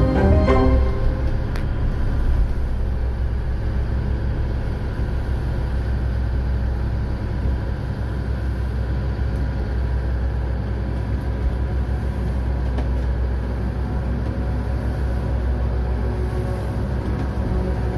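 Steady low drone of a fishing boat's engine heard inside the cabin while under way at sea. The tail of a marimba-like music track fades out in the first second.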